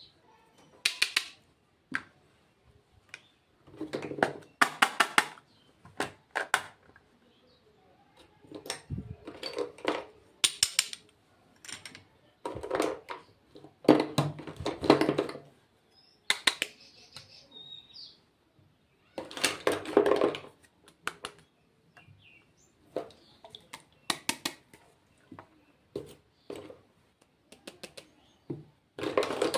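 Hands handling cosmetic packaging and products: repeated short bursts of rustling, clicking and tapping with quiet gaps between them.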